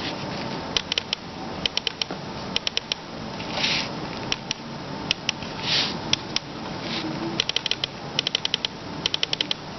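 Computer-mouse microswitches clicked by hand, giving sharp clicks in quick runs of two to five, over a steady low hiss. There are two brief soft rushes of noise, a little under 4 seconds in and near 6 seconds.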